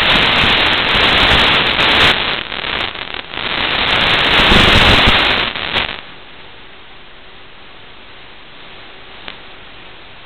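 Static hiss from an analog FPV video receiver's audio channel: loud and crackling while the radio link is weak, then dropping suddenly about six seconds in to a steady, much fainter hiss as the picture clears.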